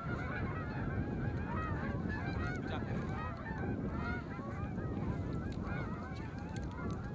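A large flock of Canada geese honking, many calls overlapping in a steady chorus.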